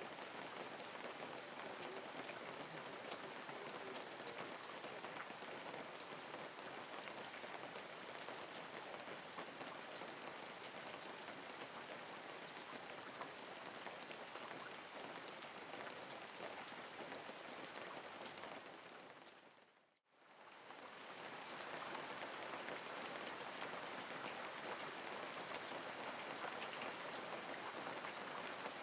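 Steady light rain falling, a dense even hiss of pattering drops. About two-thirds of the way through it fades out to near silence and fades back in over a couple of seconds.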